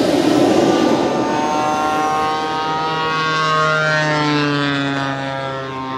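Small gas-turbine engines of radio-controlled model jets running. A loud exhaust rush at first gives way to a high turbine whine, several tones sliding up and down in pitch against a steady low hum.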